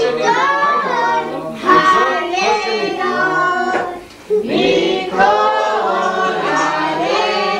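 A group of voices singing a song together, with a brief break about four seconds in.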